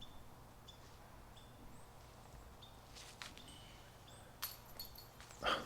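Faint outdoor ambience with scattered short, high bird chirps over a steady low hum, and a brief louder noise near the end.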